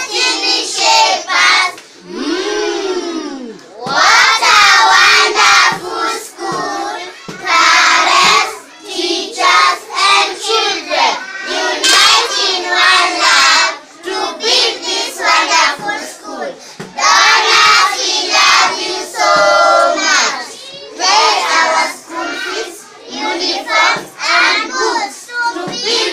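A class of young children reciting a poem together in a loud sing-song chant, in phrases of a second or two with short breaks between them, with some hand claps among the voices.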